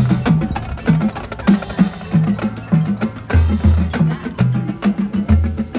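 Marching band percussion playing a fast, steady rhythmic passage: crisp drum and block-like strokes over a repeating pattern of short low bass notes.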